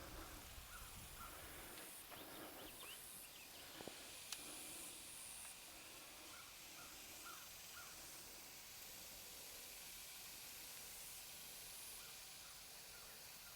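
Faint, steady hiss of air escaping through a puncture in a tubeless tractor tire, the leak just found with soapy water. A single light click about four seconds in.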